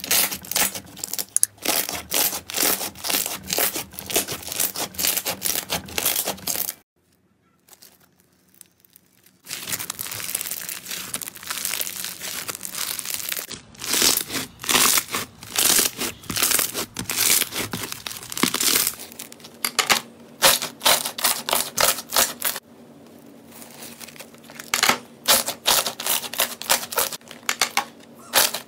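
Hands squeezing and pressing slime, including a bead-filled floam: rapid crackling and popping as air pockets burst. It comes in quick runs of clicks, with a brief silence about seven seconds in.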